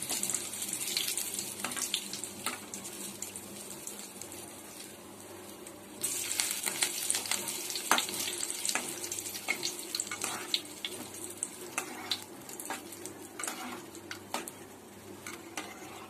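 Curry leaves sizzling and crackling in hot oil in a kadai, stirred with a perforated ladle. The frying gets suddenly louder about six seconds in.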